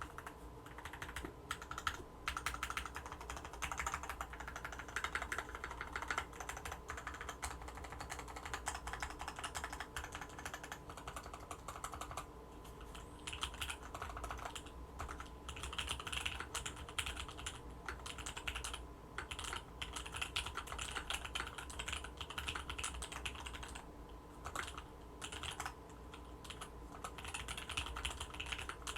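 Continuous, steady typing on an Orion V3 custom mechanical keyboard with Zeal Tealios linear switches and an FR4 plate: a rapid, irregular stream of keystroke clacks.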